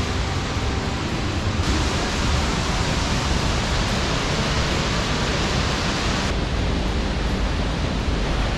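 Steady roar of Looking Glass Falls, a waterfall's even rush of falling water. It grows brighter and fuller from about two seconds in, then drops back a little after six seconds.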